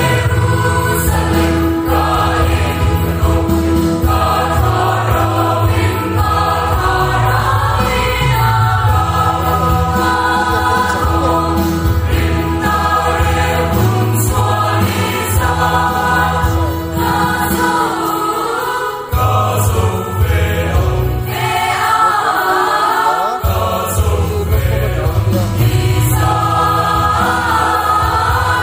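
Background music: a choir singing a gospel song over a steady bass line.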